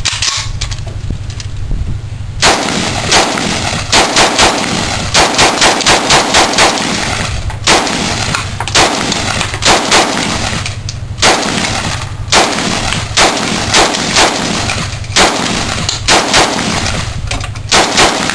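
Gunshots fired in quick succession: a string of sharp shots begins about two seconds in and keeps going in rapid clusters of two to four, with brief pauses between them.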